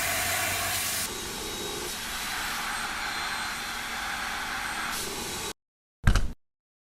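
Deerma DX1000 corded vacuum cleaner running with a steady whooshing hiss and a faint high whine; its tone shifts slightly about a second in. It cuts off abruptly at about five and a half seconds, and a short, loud, bassy thump follows about half a second later.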